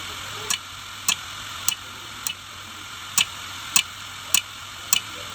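Hard disk drive's read/write head clicking, a sharp click about every 0.6 seconds with one longer pause midway, over the steady whir of the spinning drive. This repeated head knocking is the sign of a failing drive that cannot read its platters.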